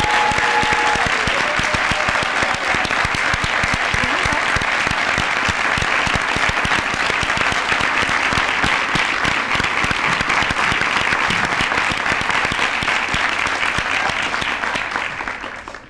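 Large audience applauding, a dense steady clapping that dies away near the end.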